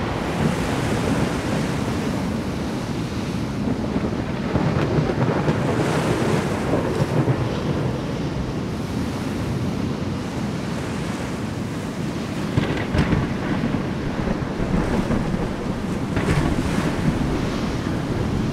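A deep, steady rushing noise like wind and surf, with brief hissier surges about two-thirds of the way through and again near the end: an ambient noise soundscape.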